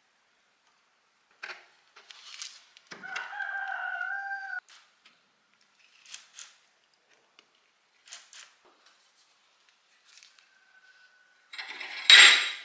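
A rooster crows once, a held, wavering call of about a second and a half, among scattered light taps and scrapes; near the end comes a short, loud, harsh scraping burst.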